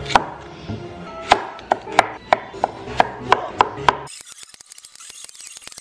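Chef's knife cutting the skin off a daikon radish and knocking down onto a wooden cutting board, about ten sharp knocks, two or three a second. About four seconds in the knocking stops and only a faint hiss is left.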